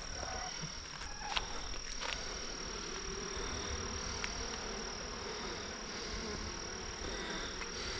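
Steady hum of honeybees stirred up as their hive is moved, over a constant high-pitched insect trill, with a couple of faint knocks in the first two seconds.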